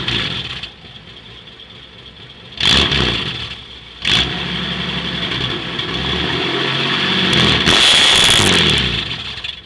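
Chevrolet Opala's engine revving: two sharp throttle blips over a steady idle, then held at higher revs that rise and fall before dropping back near the end.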